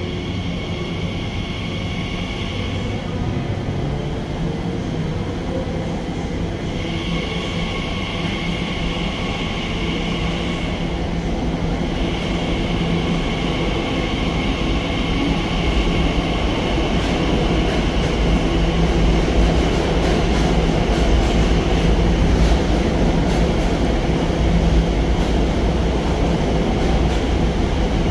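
Elizabeth line Class 345 electric train running on the rails: a steady rumble that grows slowly louder, with a high whine that drops out twice and comes back.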